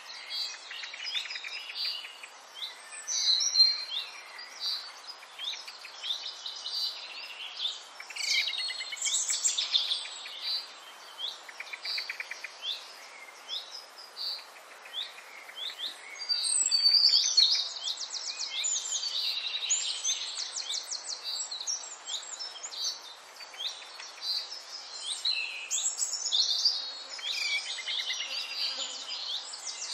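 A chorus of many small songbirds chirping and singing over one another, with quick chirps, sliding notes and rapid trills throughout.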